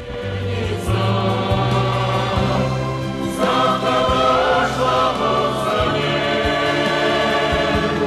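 Song music: a choir singing sustained notes over instrumental accompaniment with held bass notes, swelling louder about a second in.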